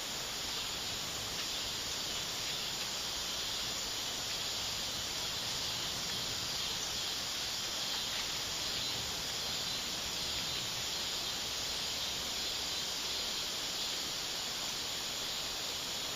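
Steady, unbroken drone of an insect chorus in summer woods, a high hiss-like buzz with no pauses.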